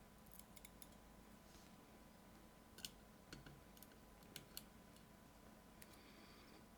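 Faint, scattered sharp clicks of small metal lock parts being handled as pin stacks are taken out of a disassembled lock cylinder, with a few louder clicks in the middle.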